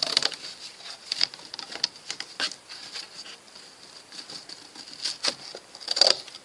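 Scissors cutting through corrugated cardboard: a run of irregular crunching snips and clicks, loudest about six seconds in.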